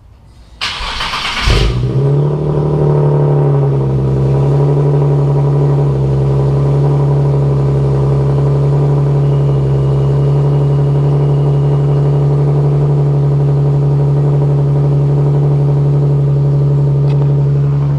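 Nissan 370Z's 3.7-litre V6 cranked over by the starter, catching after about a second, then idling loud and steady through a straight-through rear muffler delete with plain pipes.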